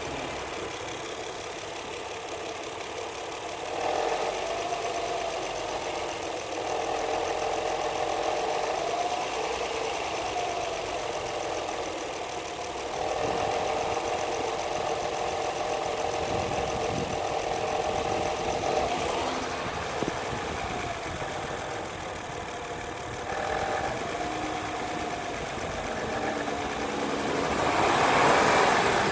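2009 Honda Accord V6 engine running with a strange tone that rises and falls in pitch as the gas is pressed lightly, three times over, louder near the end. It is the noise the owner hears only when the engine is freshly started and cold, which goes away once the car has been driven a while.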